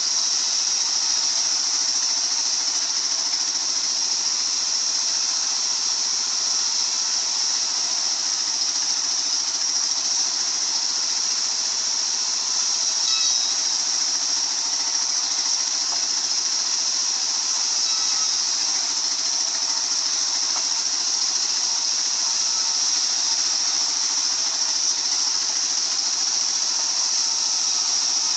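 Sawmill circular saw running steadily with its engine, a constant high hiss over a low engine hum.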